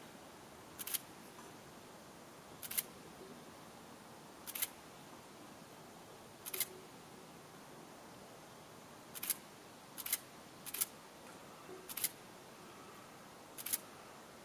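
Nine short, sharp clicks at uneven gaps of one to three seconds, two of them coming quickly one after another about ten seconds in, over a faint steady hiss.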